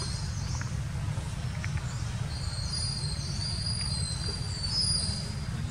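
Outdoor forest ambience: a steady low rumble under high-pitched insect buzzing. The buzzing swells from about two seconds in and fades near the end.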